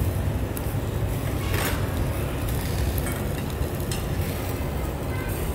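Steady low rumble of restaurant background noise at a charcoal table grill, with a few light clicks.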